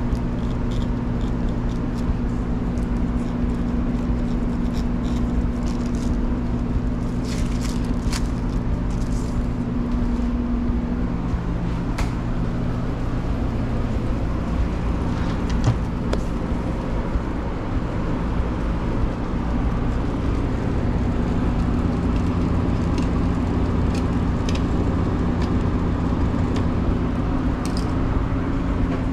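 Steady hum of commercial kitchen fans and motors, with several low fixed tones and a few light clicks and taps.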